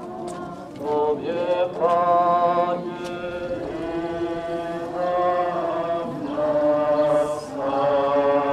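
Slow liturgical chant sung in long held notes, the pitch changing about once a second or two.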